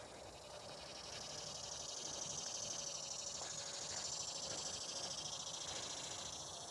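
Insects trilling in a steady high-pitched chorus that swells over the first couple of seconds and then holds.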